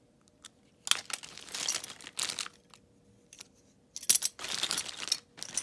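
Plastic packaging crinkling and rustling as bagged party-favor toys are handled and moved about in a pile, in two bursts of a second or more each, about a second in and again about four seconds in.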